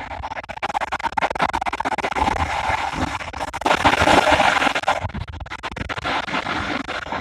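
Running noise of a moving train heard from its cab: a dense clatter of wheels on rail over a rumble. About three and a half seconds in, an oncoming electric train passes close on the adjacent track, a loud rush that lasts about a second and a half.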